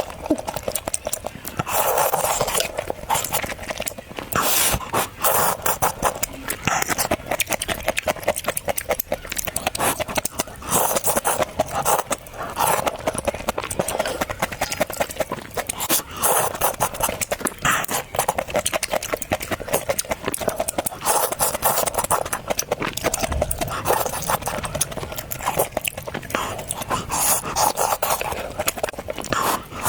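Close-miked eating: continuous wet chewing and mouth smacking, dense with small clicks, with a louder burst of chewing every second or two.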